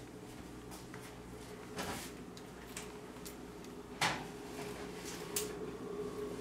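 Oven door and rack being worked as a foil pan is slid into the oven: a few clunks and scrapes, the loudest about four seconds in.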